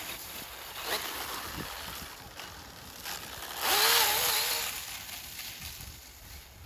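Battery-powered RC snowmobile running on snow: the electric motor's whine wavers with the throttle over the hiss of the track churning snow, with a rising whine about a second in as it speeds up. It is loudest about four seconds in, as it passes close by.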